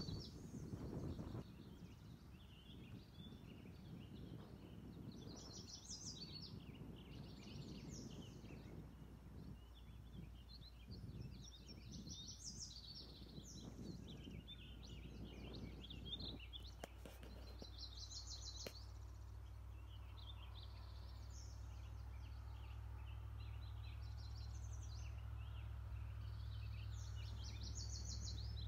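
Songbirds singing short trilled phrases over and over, every second or two. There is low rumbling noise under them for the first half, which gives way to a steady low hum.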